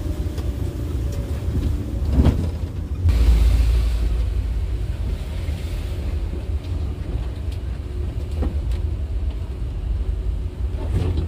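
Intercity bus driving, heard from the cabin: a steady low engine and road rumble, with a short knock about two seconds in and a louder surge of rumble a second later.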